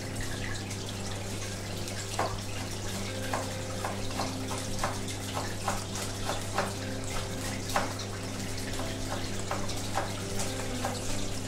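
Aquarium water circulating: a steady trickle with irregular bubbly plinks about once or twice a second over a steady low pump hum.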